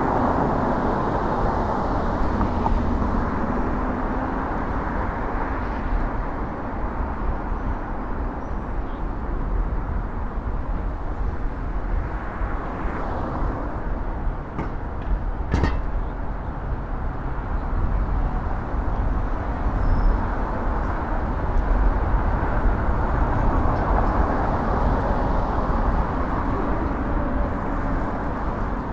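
Steady rush of wind on the microphone and road noise from riding a bicycle along a city street with car traffic, with one sharp click about halfway through.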